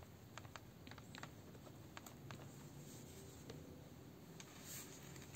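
Faint rubbing of a wipe across a smartphone screen, with a scatter of light ticks as the wipe and fingers move over it.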